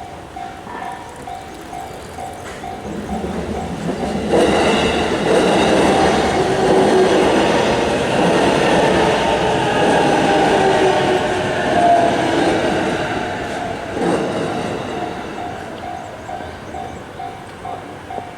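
Japanese level-crossing alarm ringing in an even, repeating electronic clang, about two strokes a second. About four seconds in, an electric commuter train runs through the crossing, its wheels clattering over the rail joints, and drowns the bell for about ten seconds. The train fades and the bell is heard again.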